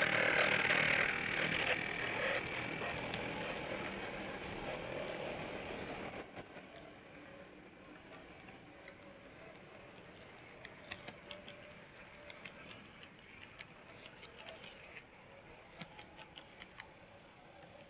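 Model train running on Kato Unitrack: the locomotive's motor whirs past and fades over the first few seconds. The freight cars then roll by with a run of light clicks from their wheels on the plastic track and rail joints.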